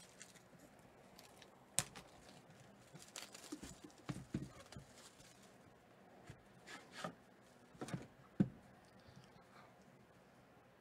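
Faint handling of a shrink-wrapped cardboard trading-card box: scattered sharp taps and clicks with soft rustling of the plastic wrap as the box is pressed on and turned over.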